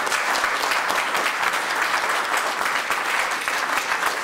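Audience applauding: many hands clapping at a steady, even level.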